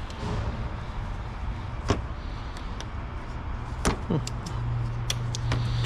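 Scattered sharp clicks and knocks of plastic trim pieces and clips being handled and fitted to a car's front end, with a steady low hum that gets stronger from about four and a half seconds in.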